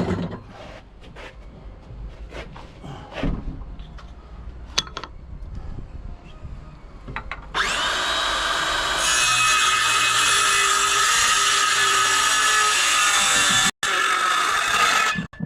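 Handheld electric power tool cutting a wood slab: a few knocks and handling noises first, then about halfway through the motor spins up with a rising whine and runs loud and steady through the cut, stopping just before the end.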